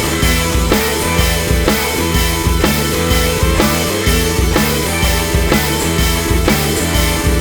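Background rock music with a driving drum kit and a steady beat.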